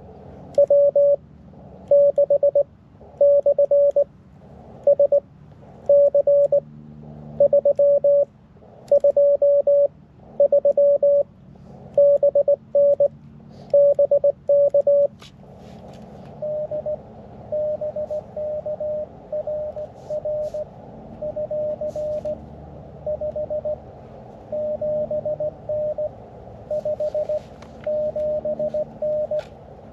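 Morse code from a QRP ham transceiver: a single pitched tone keyed in dots and dashes. For about the first half it is loud, the radio's sidetone of the operator's own sending, with receiver hiss cutting out under each character. About halfway through it gives way to a quieter Morse signal over steady receiver hiss, another station being received.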